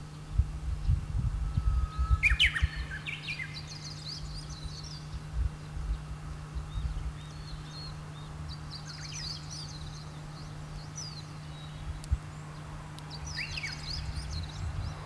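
Small birds chirping and twittering in several short bouts over a steady low hum. Low rumbling bumps come and go, loudest in the first few seconds.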